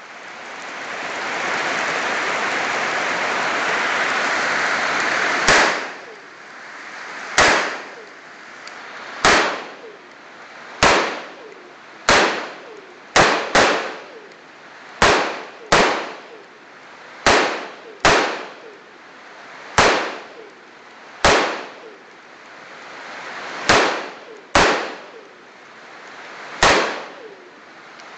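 Colt M4 carbine with a Troy Claymore muzzle brake firing about sixteen single 5.56 mm shots, paced one to two and a half seconds apart with a couple of quick double taps. Each shot is a sharp crack with a ringing echo that dies away over about a second. For the first five seconds, before the shooting starts, there is a steady hiss of rain.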